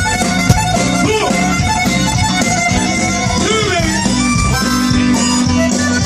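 Tejano band playing live: a reedy lead melody with some sliding notes over bass and drums, with no singing. A sharp click sounds about half a second in.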